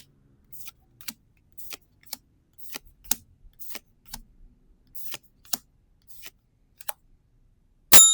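Trading cards being flicked through one at a time, a light snap about every half second. Near the end a bell dings twice in quick succession, much louder, and keeps ringing.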